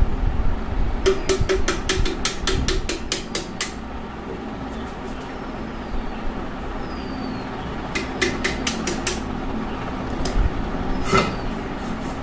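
Quick runs of sharp metallic taps and clicks, about four or five a second, from tools working on a fan motor's metal housing as it is taken apart: one run after about a second, another about eight seconds in, and a single knock near the end, over a steady low hum.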